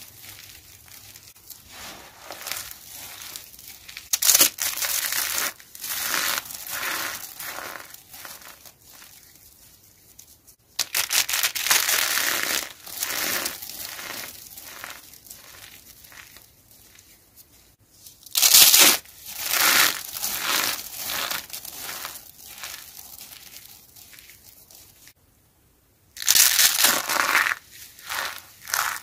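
Dry soap chips and shavings coated in starch crunching and crackling as bare hands squeeze and grind them. The sound comes in repeated bursts of squeezing with quieter stretches between, and breaks off into silence for a moment near the end.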